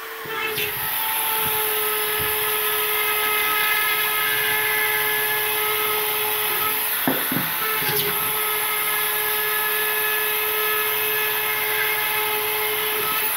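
Handheld drywall cut-out router running at a steady high whine as its spiral bit, with a guide point, cuts round pipe holes through gypsum board. The pitch dips briefly about seven seconds in as the bit loads up, and the motor starts to wind down at the very end.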